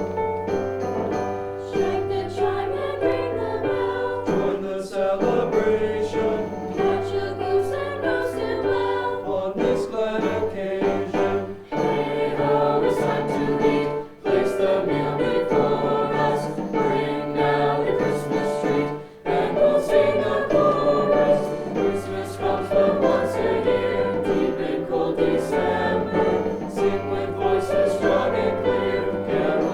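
High school choir singing a Christmas song, with held low notes underneath.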